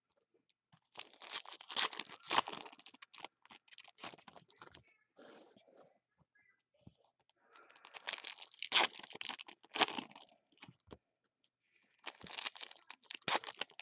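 Foil trading-card pack wrappers torn open and crinkled by hand, in three spells of crackling with quiet gaps between.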